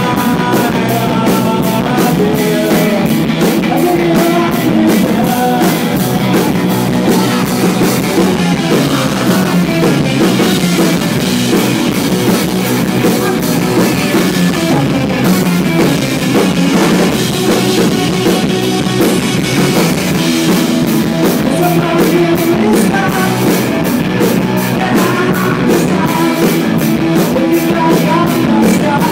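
Live alternative rock band playing loud and steady: drum kit, guitars and a lead vocal, in a rough audience recording.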